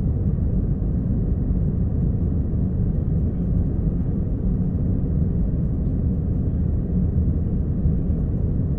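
Steady, deep rumble of an aircraft during takeoff, even in level with no distinct tones or breaks.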